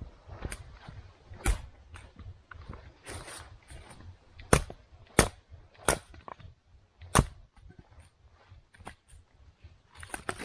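Firewood burning in a tent's wood stove, crackling and popping: sharp single cracks at irregular intervals, five of them loud, with fainter ticks and a low rustle between.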